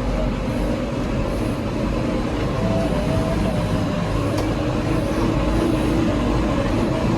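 Heavy diesel engine of earthmoving machinery running steadily: a deep rumble with a steady whine above it.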